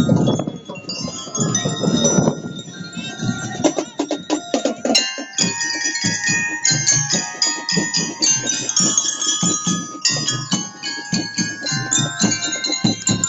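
Marching bell lyres (glockenspiels) struck with mallets, ringing out a tune. Drums join in with a steady beat from about five seconds in.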